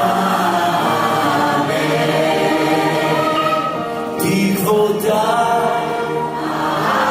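Choirs singing held notes of a Hebrew song, accompanied by a symphony orchestra's strings and a piano.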